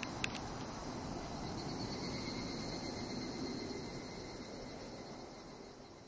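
Insects singing steadily from the trees in a shrill, even drone, with two sharp clicks at the very start. The sound fades gradually toward the end.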